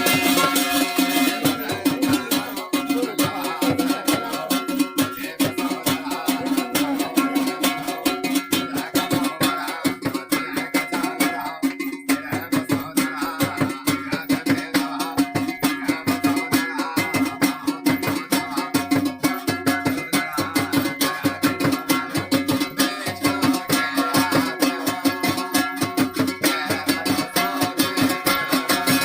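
Folk music with a fast, even beat of dense strokes over a steady low drone note, without clear singing.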